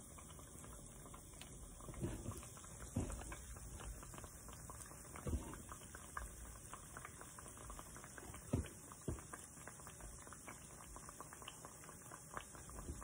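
Fry bread dough frying in hot oil: a faint, steady sizzle full of tiny crackles, with a few louder pops or knocks scattered through it.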